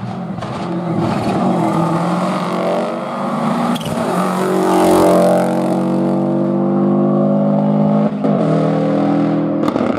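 Rally car engine under hard throttle on a hill-climb stage, passing close and loudest about five seconds in, then pulling away uphill. There are gear changes about four and eight seconds in.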